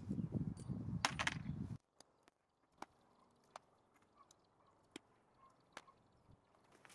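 Pliers working metal fence staples out of a wooden fence post: a rustle of handling with two sharp metallic clicks, which stops abruptly about two seconds in, leaving only a few faint scattered ticks.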